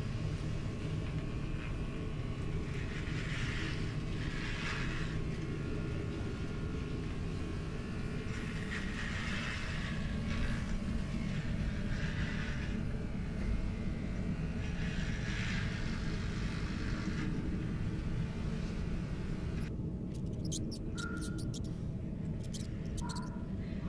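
Electric hair clippers running steadily over a low rumbling drone while a head is shaved, with hissy clipper strokes through the hair every few seconds. About 20 seconds in the clipper sound cuts off, and a rat's faint scratching clicks and short squeaks follow.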